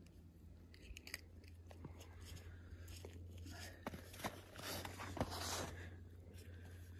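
Faint crunching of boots shifting on packed snow, with a few scattered small clicks, over a steady low hum.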